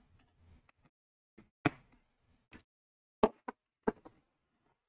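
About six light, irregularly spaced clicks and taps as a small screwdriver and a laptop's metal chassis are handled on a cardboard box.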